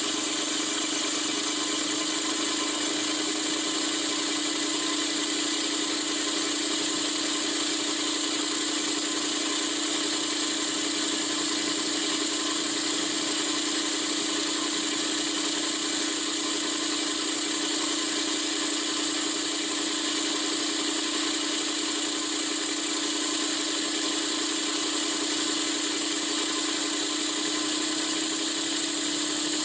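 Auto-prime pump running steadily up at speed, pulling vacuum on its suction side during a vacuum test: a constant drone with a strong hiss over it, the drone rising a little in pitch near the end.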